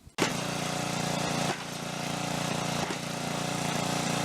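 Small gasoline engine running steadily at a constant speed, easing slightly about a second and a half in. It cuts in and out abruptly.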